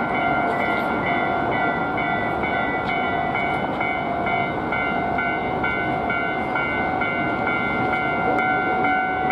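Japanese level-crossing warning bells ringing in a steady repeating pattern while a Hankyu Kyoto Line train runs through the crossing, its running noise on the rails steady underneath.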